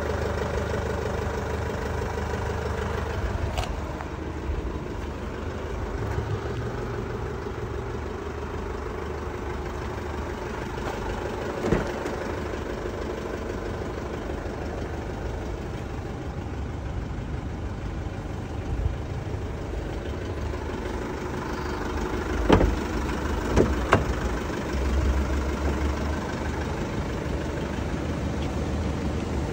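Isuzu D-MAX pickup's engine idling steadily, strongest at the start close to the tailpipe. A sharp knock comes about midway, then two more sharp knocks about two-thirds of the way through.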